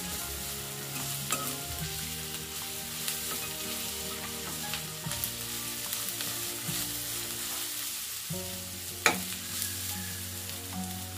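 Onions, crushed ginger-garlic and whole spices sizzling in hot oil in a kadai while a metal spoon stirs them. Scattered clicks of the spoon against the pan come through, the loudest about nine seconds in.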